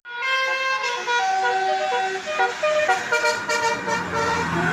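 Indonesian bus 'telolet' musical air horn playing a melody, several horn tones sounding together and changing note every quarter to half second. A low engine hum comes in near the end.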